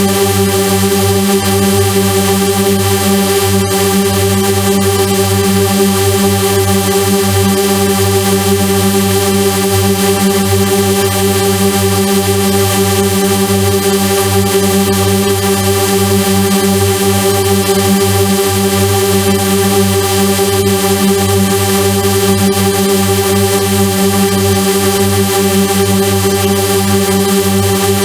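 Loud, unchanging electronic drone of several held synthesizer-like tones at once, with a hiss over the top.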